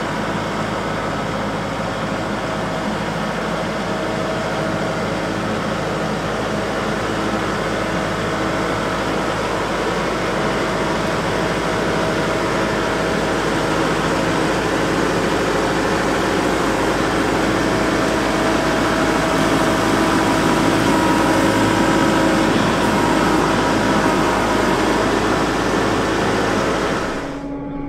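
Kubota MX5400 tractor running steadily as it drags a land plane over gravel, giving a constant mechanical drone with a few held tones.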